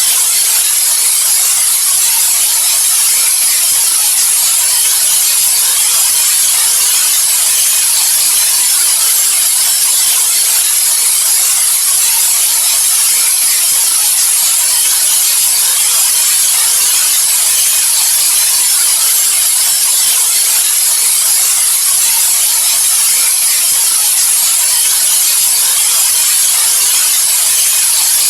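Steady white noise: an even, unchanging hiss, brightest in the highs, with no pauses or changes.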